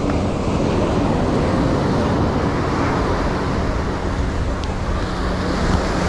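Steady beachfront ambience of surf and passing road traffic, with wind noise on the microphone.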